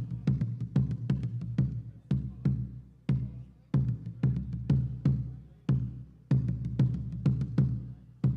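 Boi-bumbá drums playing a rhythm over a deep booming bass drum: quick runs of sharp strikes with short gaps between them.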